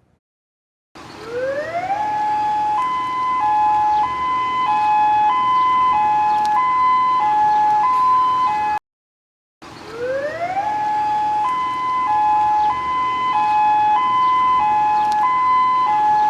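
Emergency alert system (EAS) alarm: a siren tone sweeps up, then alternates between two high tones about every two-thirds of a second over a steady hiss. It cuts out for under a second about halfway through, then starts over with the same upward sweep into the two-tone alternation.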